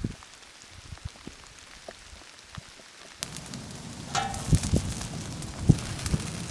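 Light rain: scattered raindrops tapping on a metal pot lid. About three seconds in, a louder steady patter of rain sets in over a wood fire, with sharp crackles from the burning sticks.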